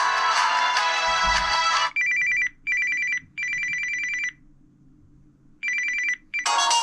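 Samsung Vibrant's preset ringtones playing in turn through the phone's speaker. A musical ringtone cuts off about two seconds in. A telephone-style electronic ring follows in short repeated bursts with a brief silent pause. The next musical ringtone starts near the end.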